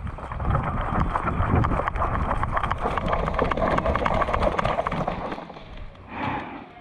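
Running footsteps with rattling gear and wind on the microphone; the run stops about five seconds in.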